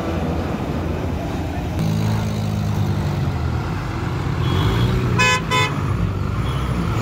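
Hino bus's diesel engine running as it pulls off the ferry ramp and passes close by, with two short horn toots about five seconds in.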